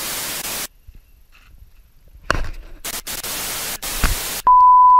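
Bursts of TV-style static hiss that switch on and off abruptly, with two short thumps between them. About four and a half seconds in, a steady single-pitch test-tone beep starts and holds.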